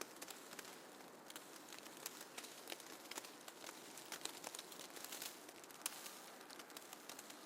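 Faint snowfall ambience: a soft steady hiss with many small, irregular ticks and crackles, like flakes and ice grains landing.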